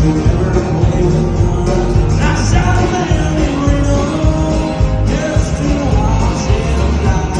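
Live country band playing, with a singer's voice over guitar and a steady low beat.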